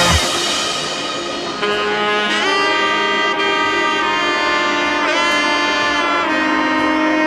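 Background music led by a saxophone, holding long notes with a few bending slides.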